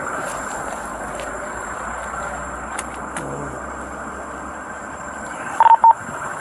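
Steady noise of motor vehicles around a highway pileup. Near the end, two short, loud electronic beeps sound in quick succession.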